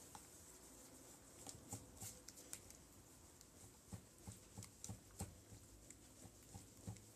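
Wire whisk with plastic-coated wires beating eggs and sugar in a glass bowl: faint, irregular clicks and taps of the whisk against the glass, a few a second from about a second and a half in.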